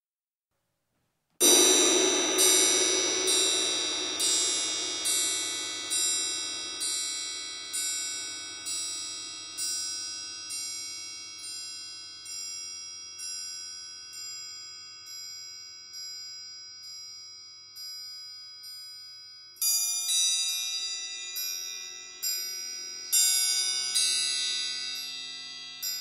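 Large suspended cymbal struck once, then tapped with a stick about once a second, each stroke ringing on and the strokes slowly softening. About three-quarters of the way through, triangles join with louder, brighter strokes ringing over the cymbal.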